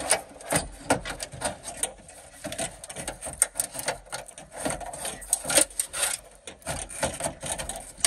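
Hands working inside a pickup truck's door shell, pulling the wiring harness and parts against the sheet-metal door frame: irregular scraping, rubbing and small clicks and knocks.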